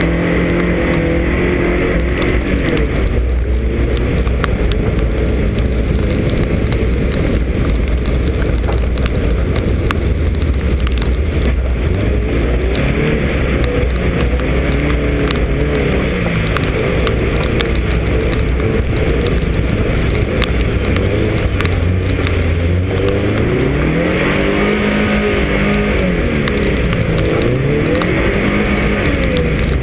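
A rally car's engine working hard through slushy mud, heard from the hood. Its pitch repeatedly rises and falls as it accelerates and eases off, over a constant rushing noise.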